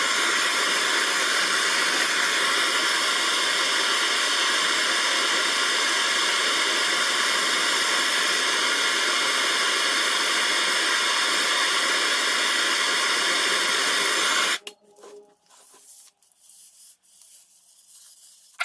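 Handheld soldering torch burning with a steady hiss while union ends are soldered onto a pipe; the flame is shut off suddenly about fourteen and a half seconds in, followed by a few faint clicks.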